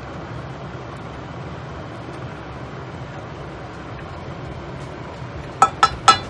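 A steady hiss, then three sharp, ringing clinks of kitchenware in quick succession near the end, a utensil knocking against a pot or dish.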